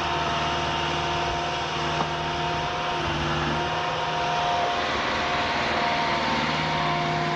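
An engine running steadily at a constant speed: an even mechanical hum with several held tones that shift slightly now and then.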